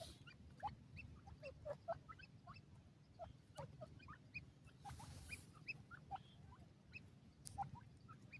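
Grey francolins giving faint, scattered short chirps and squeaks, several a second at irregular intervals, with a brief rustling hiss about five seconds in.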